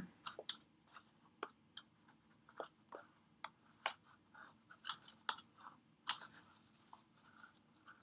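Faint, irregular small clicks and rustles of hands handling a cardstock box while pulling and tightening baker's twine into a bow.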